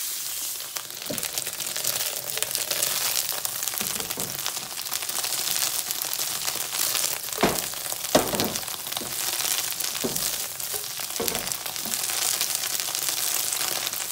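Paneer cubes sizzling in butter in a non-stick kadai, with a spatula now and then scraping and knocking against the pan; the two loudest knocks come about halfway through.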